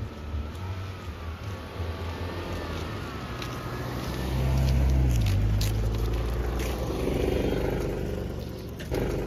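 A road vehicle's engine running steadily, with road noise. About four seconds in it grows louder, and its low note drops in pitch soon after.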